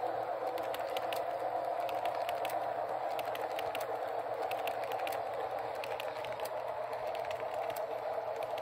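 HO scale model freight train rolling past on track: a steady whirring hum with many light, irregular clicks from the cars' wheels on the rails.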